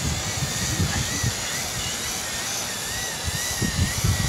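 WLtoys Q212 quadcopter's motors and propellers whining as it comes down to land, the high pitch wavering up and down as the throttle is eased.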